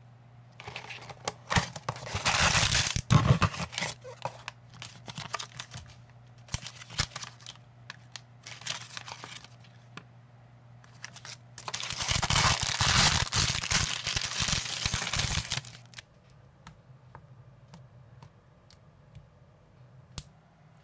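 Packaging of a building-brick toy set being torn open and crinkled: two long spells of tearing and rustling, about two seconds in and again about twelve seconds in. Small plastic clicks and handling noises between and after them.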